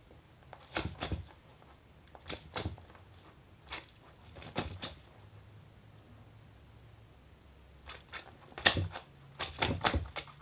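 A kitten wrestling with a plush shark toy on a vinyl floor mat: short bursts of rustling and scuffing as it grapples, bites and kicks the toy, in about six separate flurries, the loudest near the end.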